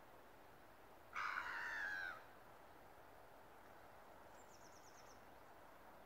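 A gull gives one call lasting about a second, a little over a second in, dipping slightly in pitch at its end. Later a faint quick run of high ticks is heard.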